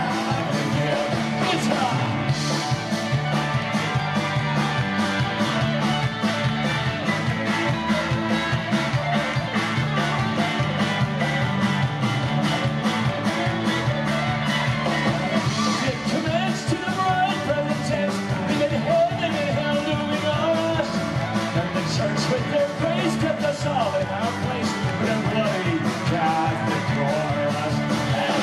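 Live Celtic rock band playing an instrumental stretch: fiddle melody over electric guitars and drums keeping a steady, driving beat.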